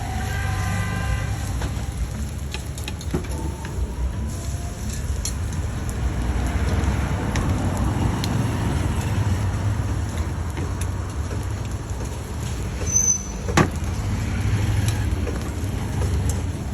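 Roadside traffic noise: a steady low rumble of passing vehicles. A brief pitched tone sounds near the start, and a single sharp knock comes about thirteen seconds in.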